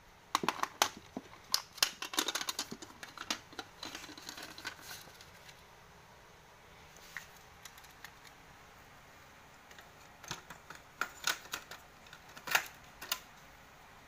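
A plastic cassette case and cassette tape being handled: a run of clicks and rattles, then after a quiet spell a few sharper clacks as the tape is loaded into a Sony boombox's cassette deck and its keys pressed.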